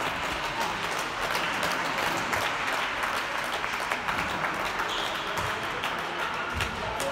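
Spectators applauding: a steady patter of many hand claps in a large sports hall.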